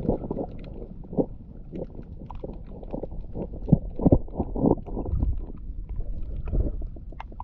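Muffled water sloshing and bubbling with irregular dull knocks, as picked up by a camera held underwater while snorkeling over coral.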